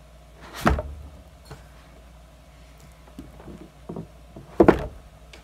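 Large plastic water-cooler jug being pressed down by hand to squeeze the air inside for a cloud-in-a-bottle demonstration. Its walls give two loud knocks, about a second in and near the end, with a few fainter creaks and knocks between.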